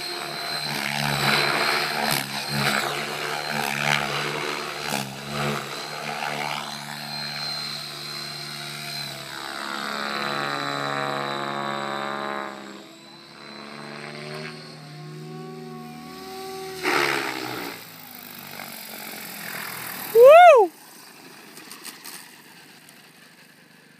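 Align T-Rex 700E Pro DFC electric RC helicopter in flight: main rotor thrum and the high whine of its brushless motor, fading as it comes down. About 20 seconds in, a short loud whine rises and falls in pitch; after it the helicopter sits on the grass with its rotors winding down.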